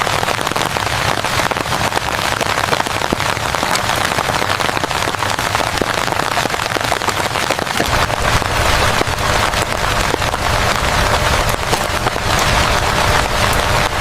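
Rain falling steadily on a surface: a dense hiss of many fine drop taps. About eight seconds in, a low rumble joins underneath.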